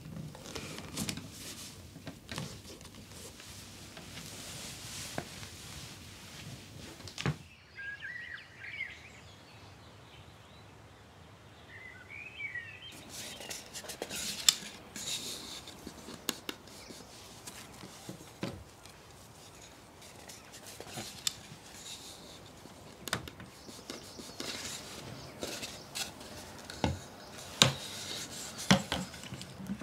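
Scattered clicks and knocks of tools and wood being handled on a workbench, including a hand clamp being worked. In a quieter stretch partway through, a few short bird chirps are heard.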